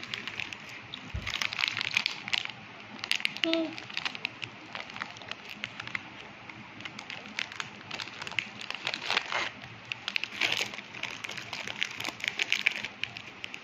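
Plastic Oreo biscuit wrapper crinkling and crackling in a child's hands, in irregular clusters throughout, with a brief small vocal sound about three and a half seconds in.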